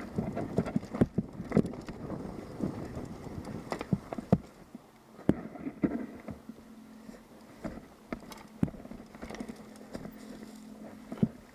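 Mountain bike rattling down a rough downhill trail: irregular knocks and clatter of the chain, frame and tyres over roots and rocks, busiest in the first half and thinning out later.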